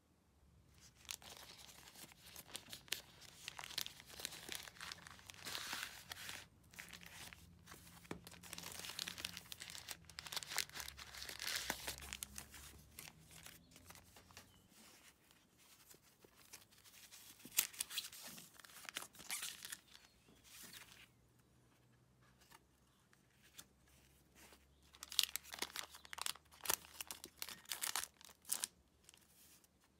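Crinkling, rustling and tearing of plastic and paper screen-protector packaging as it is handled and opened, in several stretches with short pauses between.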